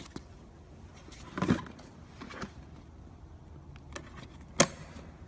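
Handling noises from fitting the high-pressure hose to an electric pressure washer: a dull knock about a second and a half in, a lighter one soon after, and a sharp click near the end as the hose fitting goes into the plastic outlet. The pump is not running.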